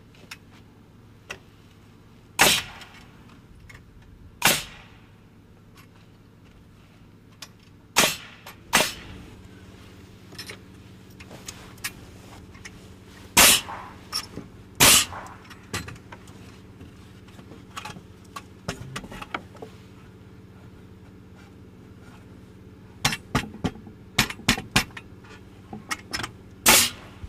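Pneumatic framing nailer driving nails through rafters into the ridge board, firing sharp single shots a few seconds apart, then a quick run of several shots and sharp clacks near the end.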